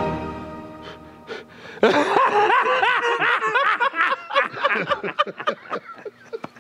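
Orchestral string music fading out, then from about two seconds in a man's loud, high-pitched laughter, repeated again and again.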